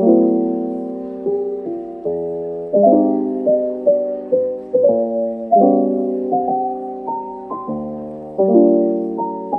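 Background piano music: a simple melody over chords, each note struck and then fading, with a mellow tone that lacks bright highs.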